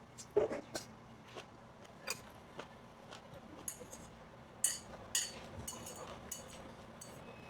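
Metal spoon and chopsticks tapping and clinking against dishes during a meal: a string of light clicks, with a few ringing clinks about four to five seconds in.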